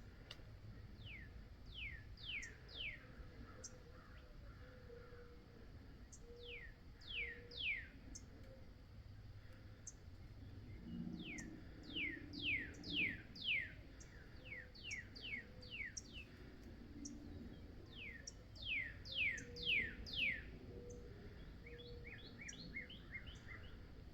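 A songbird singing groups of three to eight clear, steeply downslurred whistled notes, with pauses between the groups. The song ends in a run of shorter, quicker notes.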